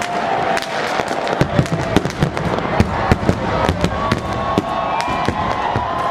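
Many fireworks going off at once: a dense, continuous run of overlapping bangs and crackles. Sustained whistling tones, some gliding slightly in pitch, sound over them.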